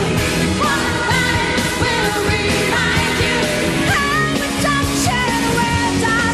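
A woman singing a pop song live over full band backing, holding notes with a wide vibrato.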